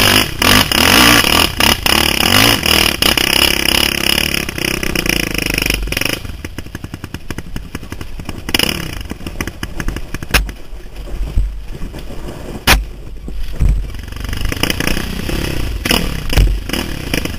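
Dirt bike engine revving hard under throttle, then easing off about six seconds in to a lower, ticking run with trail clatter and a couple of sharp knocks, before revving up again near the end.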